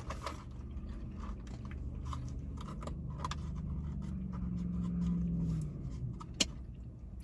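Eating sounds: chewing and small mouth and food clicks over a steady low rumble, with one sharper click a little after six seconds.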